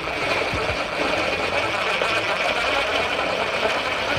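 Cordless screw gun running steadily, driving a screw into a T-shaped toggle drywall anchor and drawing the toggle tight against the back of the drywall.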